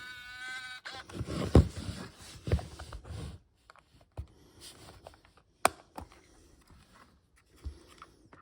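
Pentax IQZoom 130M point-and-shoot film camera being handled: its small electric motor whines for under a second, then the camera body rustles and knocks in the hands, and several sharp plastic clicks follow, one louder about two-thirds of the way through.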